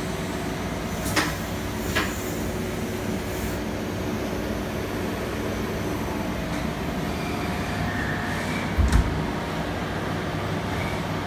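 Steady hum of workshop machinery with several faint steady tones. Two sharp clicks come about a second and two seconds in, and a dull thump about nine seconds in.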